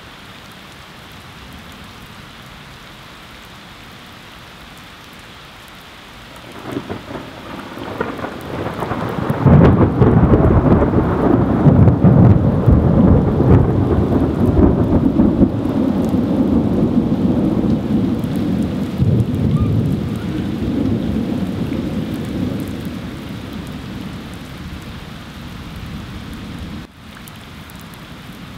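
Heavy rain pouring down steadily. About six seconds in, a long roll of thunder builds, is loudest a few seconds later, rumbles on for over fifteen seconds as it slowly fades, and drops away suddenly near the end.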